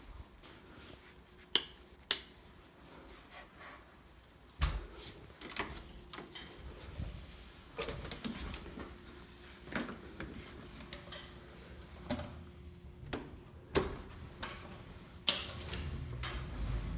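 GoTrax GXL electric scooter clicking and knocking as it is handled and set rolling: scattered sharp knocks and rattles. A faint steady motor whine comes in about five seconds in.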